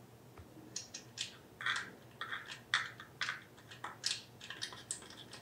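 Small metal nut and washer being spun on by hand onto the bolt through a steel horn-mount bracket: a quick, irregular run of light metallic clicks and rattles, starting about a second in.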